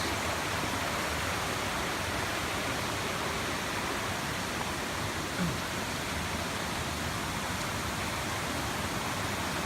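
Mosquito River Falls, a small waterfall of probably 12 to 15 feet, with its water rushing down in a steady, even wash of sound.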